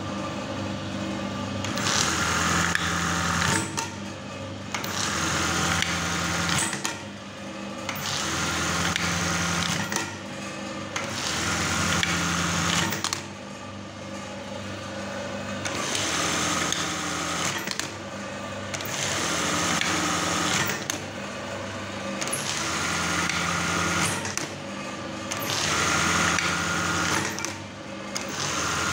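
Brother 814 lockstitch buttonhole machine running in repeated loud stretches of about two seconds, with short quieter breaks between them, over a steady motor hum. It is running with its oil not yet pumped up.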